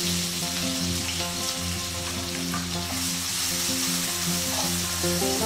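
Chopped onions sizzling in hot oil in a nonstick kadai as they are stirred with a silicone spatula, freshly added to the pan to be fried until reddish-brown. A steady frying hiss, with background music underneath.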